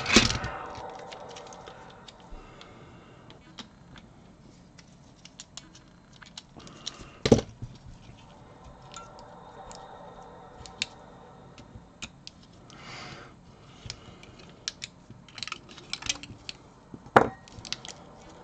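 Scattered clicks and taps of plastic Xbox One controller parts being handled and taken apart, with two sharper knocks, one about seven seconds in and one near the end, and a brief rustle in between.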